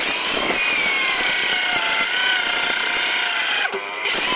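Power saw running and cutting wood for firewood: a steady motor whine over a rasping cut, briefly dipping near the end.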